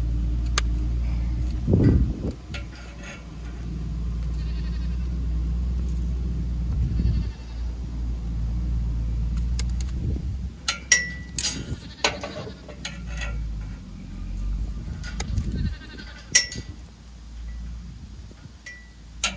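Farm animals calling a few times over a steady low rumble, with scattered sharp knocks and clicks in the second half.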